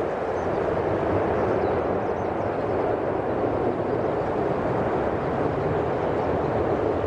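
Jet airliner passing close by: a loud, steady rush of engine noise that swells over the first second and then holds.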